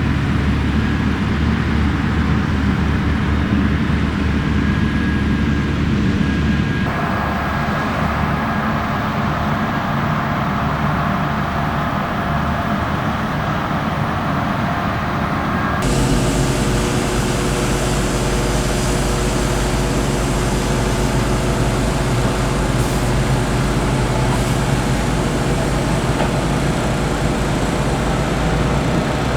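Heavy diesel farm machinery running steadily. The sound changes abruptly twice, about seven and sixteen seconds in.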